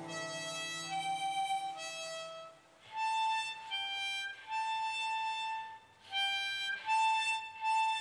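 Harmonica playing a slow melody of held single notes, pausing briefly twice.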